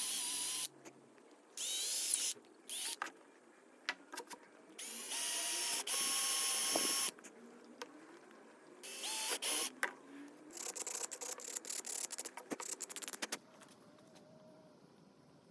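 Electric drill run in repeated short bursts, its whine climbing in pitch as it speeds up and cutting off each time the trigger is released. Near the end comes a quick series of short pulses.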